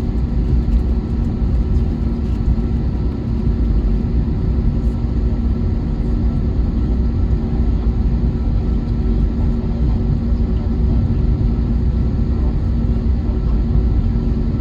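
Airbus A321neo cabin noise on the ground before takeoff: a steady low rumble from the engines and airframe, with a few steady humming tones over it.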